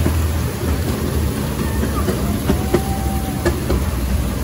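Steady low mechanical rumble with a few sharp clicks and a brief faint squeal midway.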